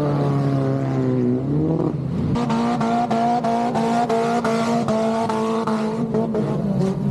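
Speedway car engine running, its pitch rising about two seconds in and then held steady, with a run of sharp pops over it.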